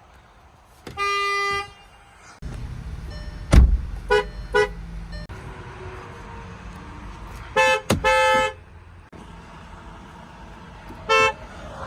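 Car horns honking several times: a single-note honk about a second in, two short two-note beeps around four seconds, a longer two-note honk near eight seconds and a short beep near the end. A low rumble of passing traffic runs from about two and a half seconds, with one sharp thump near three and a half seconds.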